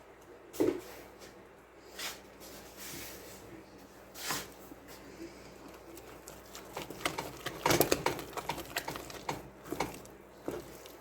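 Wooden spoon stirring and beating thick, slimy choux puff dough in a saucepan as eggs are worked in, giving irregular wet clicks and knocks of the spoon against the pan, with a busier stretch of rapid clicking near the end.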